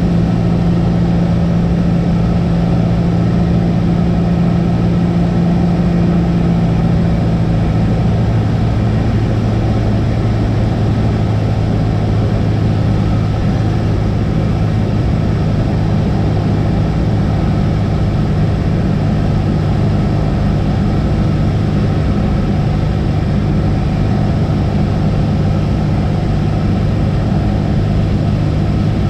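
Cessna 172's piston engine and propeller running steadily, with a loud drone and a constant rush of noise. About seven or eight seconds in, the engine note drops to a lower pitch and stays there: power being reduced.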